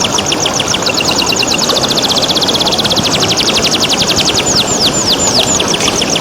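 Domestic canary singing: a few falling whistled notes, then a long rapid trill of quick notes through the middle, then slower falling notes again near the end. The song runs over a steady rush of running water.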